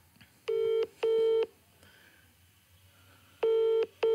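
Telephone ringback tone on an outgoing call, heard through the phone's loudspeaker: two double rings of short, steady beeps, about three seconds apart. The called number is ringing and has not yet been answered.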